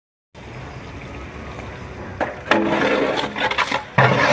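Large ladle stirring sliced tomatoes and herb-onion masala in a big biryani pot: wet, sloshing scrapes against the pot, in one long bout about two seconds in and another near the end.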